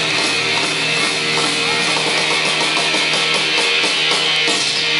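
Heavy-metal rock band playing live and loud: electric guitars and drums, with quick regular cymbal strikes through the middle.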